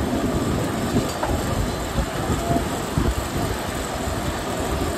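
Steady low rumble and hiss of a street-food cooking station, with hot oil and melting butter sizzling on a large flat iron tawa. A few soft knocks come about one, two and three seconds in.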